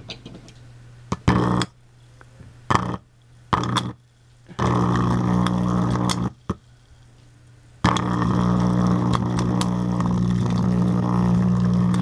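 Microwave oven transformer's high-voltage output arcing between wire probes under water in a glass jar: a loud electrical buzz switched on in three short bursts, then a burst of about a second and a half and a last one of about four seconds.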